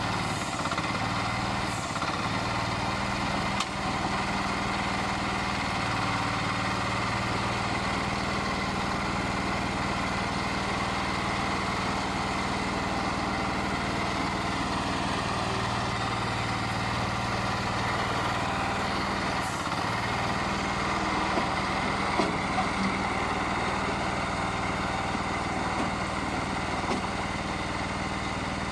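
Small diesel engine running steadily, driving the hydraulic press of a clay brick-making machine, with a few light knocks late on.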